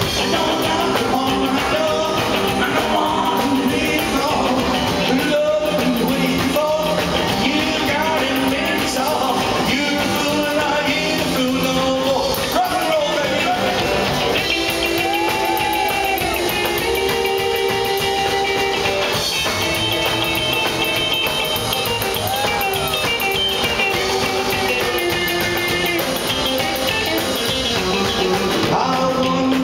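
Live rockabilly band playing: electric guitar, upright bass and drums, with a man singing. Partway through, sustained, bending lead-guitar notes take over from the voice.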